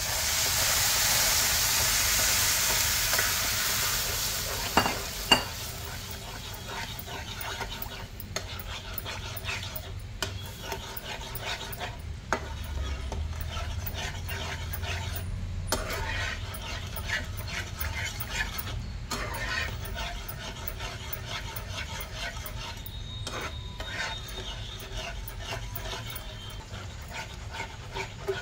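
Water poured into hot roasted semolina, sugar and ghee in a nonstick pan sets off a loud sizzling hiss that dies down over the first few seconds. Two sharp knocks of a spatula on the pan come about five seconds in. After that a flat spatula stirs and scrapes through the bubbling semolina with repeated strokes over a lower sizzle.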